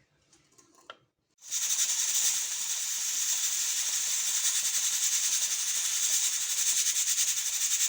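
Pressure cooker letting off steam through its valve: a steady hiss with a fast rattling flutter, starting about a second and a half in after a near-silent pause. This is the sign that the cooker has come up to pressure.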